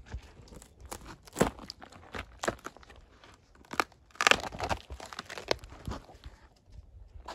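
Bark being torn off a freshly cut log by hand: irregular cracks, snaps and tearing crunches as strips are pried and peeled away, with a longer, louder tearing stretch about four seconds in.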